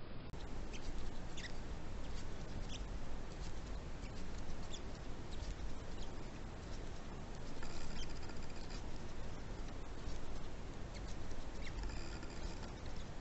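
Faint scratching and small clicks of a crochet hook working yarn, over a steady background hiss, with two brief high tones about eight and twelve seconds in.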